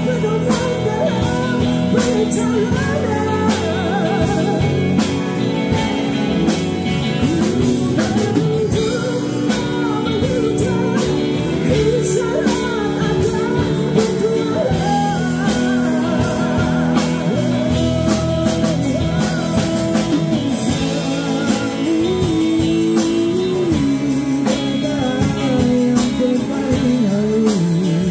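Band playing a song with a singer, guitar and drums, as at a rehearsal.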